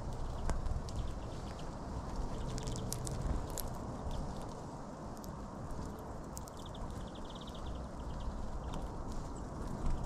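European greenfinches and sparrows feeding at close range on sunflower seeds and husks, giving scattered sharp clicks and taps as they peck and crack seeds, with a couple of short chirping trills. A steady low rumble runs underneath.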